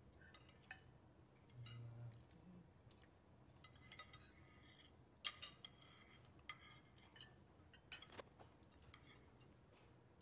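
Faint, scattered clinks of metal spoons and forks against plates, the sharpest about five seconds in.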